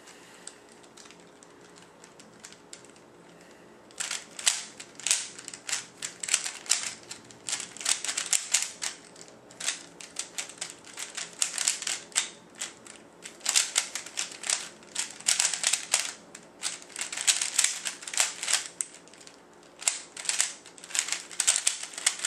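Rubik's Cube being turned fast in a speedsolve: rapid bursts of plastic clicking and clacking from the layers, starting about four seconds in, with brief pauses between bursts.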